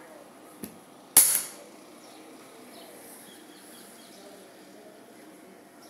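Spanish-made side-by-side double-barrel 12-bore shotgun being dry-fired. A light click comes, then about half a second later one sharp metallic snap as the internal hammer falls on an empty chamber.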